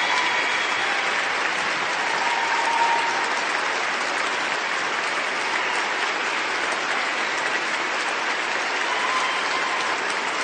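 A large crowd applauding steadily: many hands clapping at once in a dense, even clatter that holds at one level throughout.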